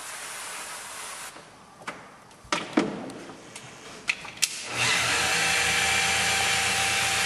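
Handheld electric stone polisher with a round pad on a marble wall: a hiss that stops after about a second, a few sharp knocks as the tool is handled, then, about two-thirds of the way in, the motor runs steadily and loudly as the pad grinds on the stone.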